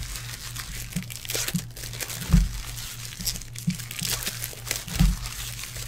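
Hands handling trading cards and foil card-pack wrappers: crinkling and rustling with scattered clicks, and two dull thumps about two and a half and five seconds in. A low steady hum runs underneath.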